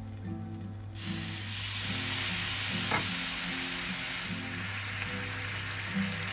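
Soy sauce poured into a hot oiled pan of fried tofu slabs, breaking into a loud sizzle about a second in that keeps going steadily. Soft background acoustic-guitar music plays underneath.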